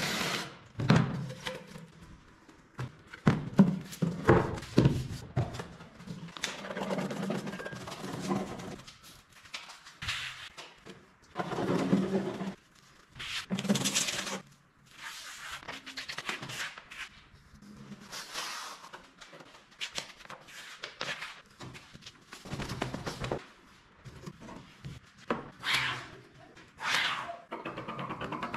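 A string of short knocks, taps and handling noises from woodworking and upholstery work, coming at uneven intervals with brief pauses between them.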